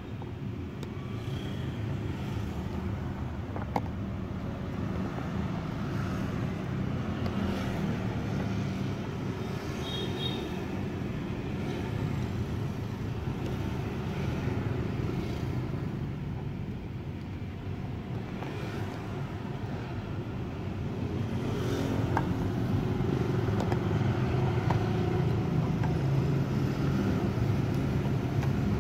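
Steady low background rumble, louder in the last third, with a few faint clicks.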